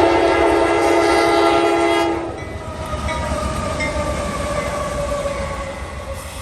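CSX freight locomotive's air horn sounding a loud, steady chord that cuts off about two seconds in. After it, the train carries on with a fainter tone that drifts slightly lower in pitch.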